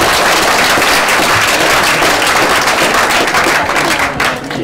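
Audience applause: many hands clapping in a dense, loud patter that thins out near the end.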